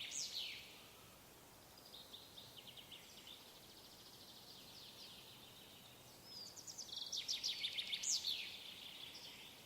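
Songbirds singing in a forest in the early morning: fast trills of high, quickly repeated notes, a softer run about two to three seconds in and a louder one from about six to nine seconds.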